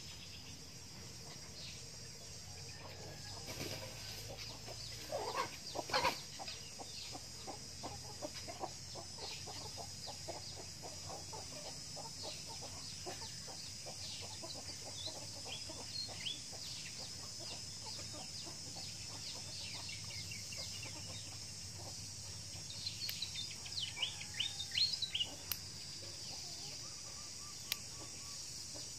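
Chickens clucking, with one louder call about five seconds in followed by a long run of soft, quick clucks, and a flurry of higher chirps near the end.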